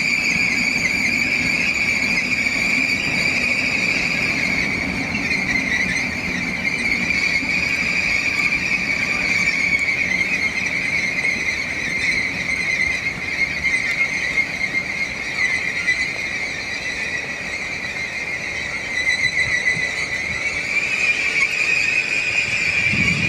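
Wheels of an ICE 4 M train squealing on the rails in a continuous high, ringing tone with overtones, over a low rumble. The pitch sags slightly mid-way and climbs again near the end.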